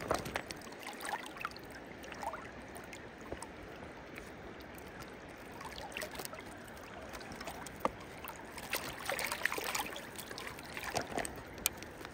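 Steady rush of flowing river water, with scattered small splashes and knocks as a rainbow trout is handled in a landing net at the water's surface.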